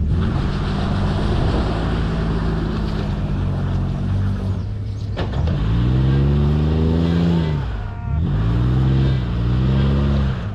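Off-road vehicle engine revving up and easing back down in two long surges, the first about halfway through and the second near the end, over a steady low engine rumble. A sharp click about five seconds in.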